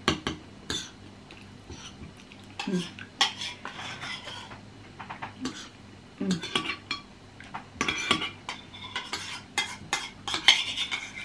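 Metal spoons scraping and clinking against bowls as two people eat, in irregular short strokes.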